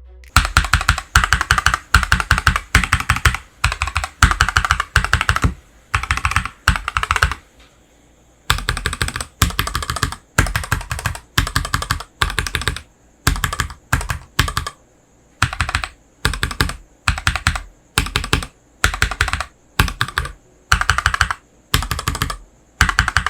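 Typing on a mechanical keyboard fitted with Akko ASA-profile clear polycarbonate keycaps. Rapid key clacking comes in short bursts of about half a second each, with a longer pause about eight seconds in.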